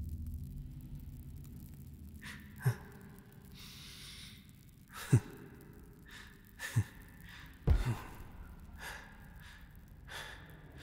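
A character's breathing: short, nervous gasps and sighs, four of them sharp and louder, with a breathy exhale in between.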